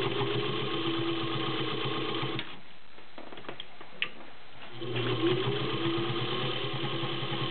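Vintage Electro Grand Class 15 clone sewing machine stitching through five layers of denim, its motor humming under rapid, even needle strokes. It stops about two and a half seconds in, a single click sounds in the pause, then it starts again about five seconds in, the motor pitch rising as it comes up to speed.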